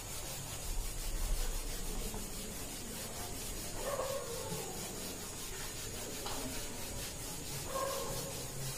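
Marker writing being rubbed off a whiteboard with a duster, a soft steady rubbing across the board's surface.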